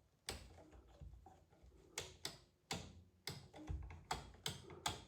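Wall light switch flicked on and off over and over, a string of about nine sharp clicks at uneven spacing.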